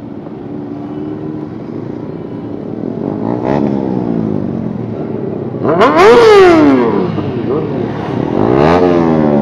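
Sport motorcycle engines revving among a group of bikes: repeated throttle blips, the pitch rising then falling, the loudest about six seconds in and another near the end.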